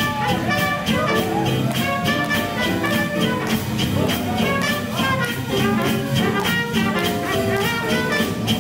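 Live swing jazz band playing, with horn lines over upright bass and drums keeping an even beat.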